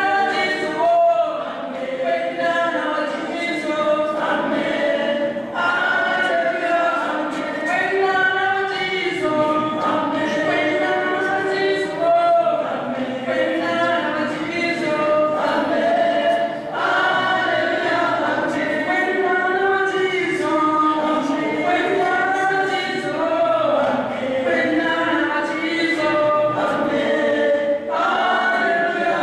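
A choir of voices singing together without pause, the soundtrack of a film played back over loudspeakers in a hall.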